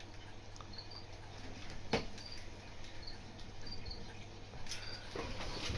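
African grey parrot making faint, short high chirps every fraction of a second, with a sharp click about two seconds in and some scratchy rustling near the end.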